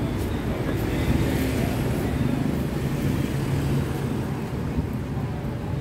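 Street traffic: a steady low engine rumble of passing road vehicles.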